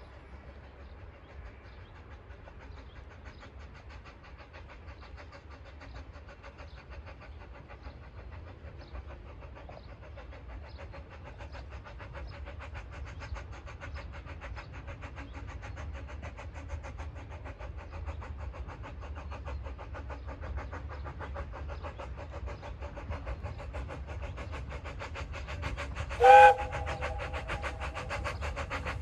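A narrow-gauge steam train running with a fast, even rhythm, growing steadily louder as it approaches. About 26 seconds in, the locomotive's steam whistle gives one short, loud blast.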